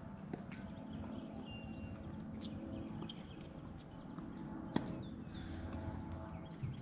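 Outdoor tennis-court ambience: a steady low hum with a few scattered sharp knocks, the loudest about five seconds in, and occasional bird chirps.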